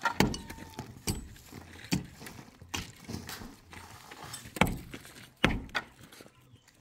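Pickaxe blows striking and breaking up a packed earth roof over wooden beams, about seven sharp strikes roughly a second apart with a pause in the middle, with loose earth and debris crumbling between them.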